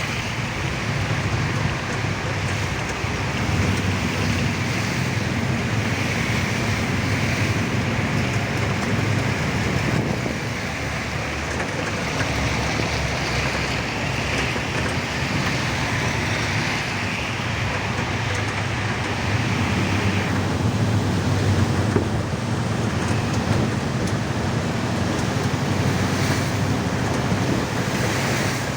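Steady rushing road noise with a low rumble, as of traffic on a rain-wet road.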